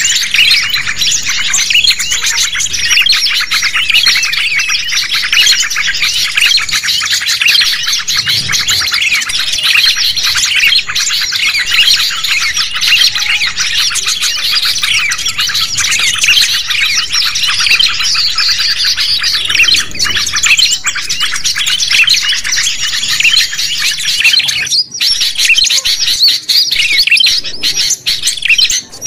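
Dense chorus of many small birds chirping and twittering at once, without a pause apart from a brief dip near the end: a mixed-species 'noisy birds' lure recording used to call wild birds in.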